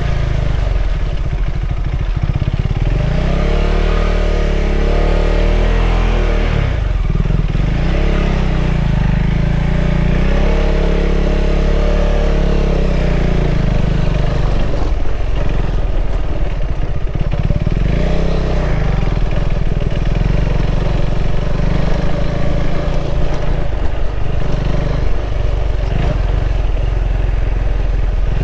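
KTM 390 Adventure's single-cylinder engine running at low road speed, its revs rising and falling with the throttle every few seconds.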